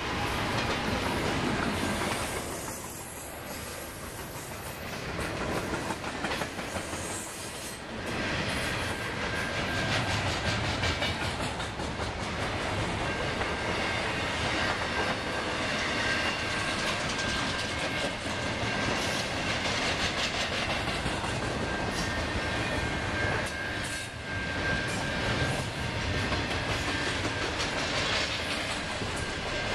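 Double-stack intermodal freight cars rolling past, the wheels clicking over the rail joints. A thin steady wheel squeal comes in about eight seconds in and continues.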